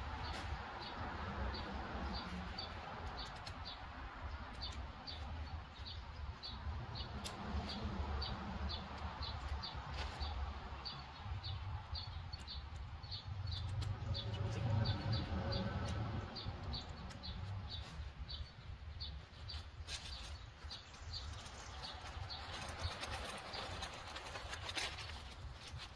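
Outdoor ambience: a low wind rumble on the microphone under a steady, high chirp repeating about two to three times a second, with a few faint clicks and rustles as the tent is handled.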